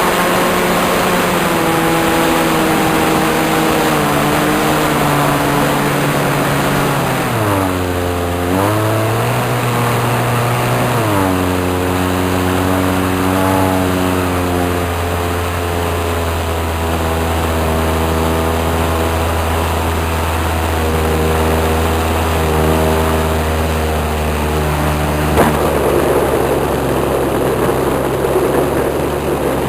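Radio-controlled model airplane engine and propeller running in flight, heard close up from the aircraft. The pitch dips sharply and comes back twice, about 8 and 11 seconds in, then holds steady; near the end the engine note weakens under a rushing noise.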